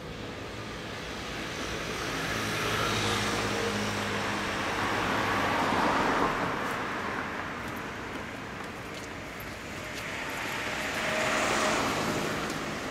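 Passing road traffic: vehicles go by unseen, the engine and road noise swelling and fading twice, loudest about six seconds in and again near the end.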